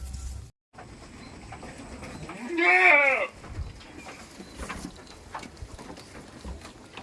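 A goat bleating once: a single call of about a second, rising then falling in pitch, among faint scattered clicks.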